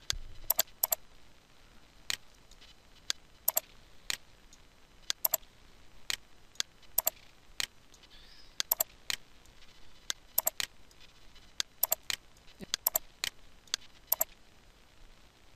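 Computer mouse clicking: about two dozen sharp, irregular clicks, several in quick pairs.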